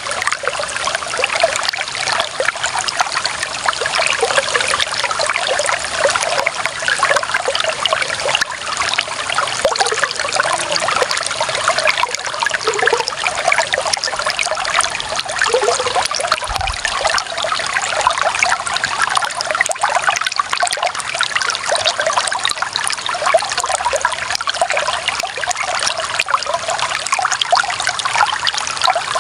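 Shallow clear water running and trickling steadily over stones, with a constant splashing babble.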